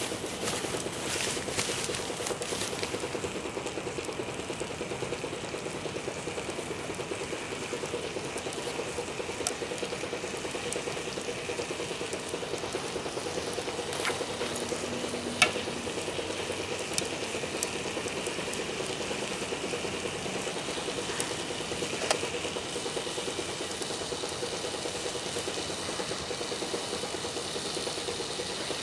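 Bacon sizzling in a skillet on top of a burning Winnerwell Nomad View stainless-steel wood stove, a steady hiss. A few sharp pops sound now and then, the loudest about fifteen seconds in.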